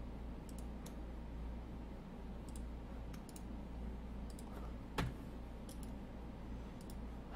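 Faint computer mouse clicks, scattered and irregular, with one sharper click about five seconds in, over a steady low hum.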